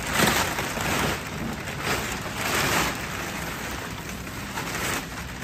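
Metallized foil wrapping crinkling and rustling as it is pulled and handled off a large machine, in several loud surges of crackling noise.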